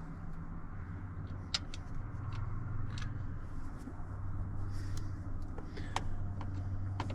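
Scattered light clicks and rattles of plastic steering-column parts and connectors being handled and fitted, over a steady low hum.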